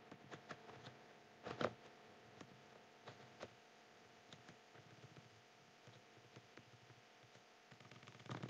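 Faint, scattered clicks of a computer keyboard and mouse as code is typed and edited, a few taps at a time. A louder cluster comes about a second and a half in and another near the end.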